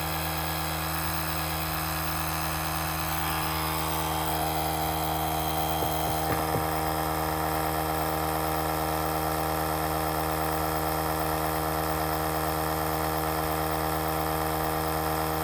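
Small battery-powered portable tire compressor running steadily while inflating an ATV tire, a constant motor-and-pump hum. Its tone shifts a little about four seconds in, and a few light clicks come about six seconds in.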